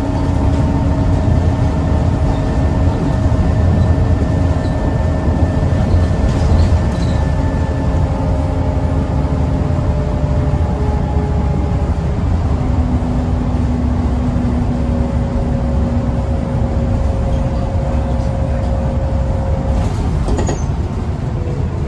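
Scania L94UB single-decker bus heard from inside the passenger cabin at cruising speed: a steady low engine and road rumble with the whine of its ZF automatic gearbox, the whine changing pitch about halfway through.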